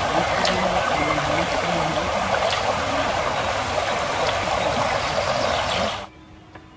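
Shallow woodland brook rushing steadily over stones, a dense, even splashing that cuts off suddenly about six seconds in.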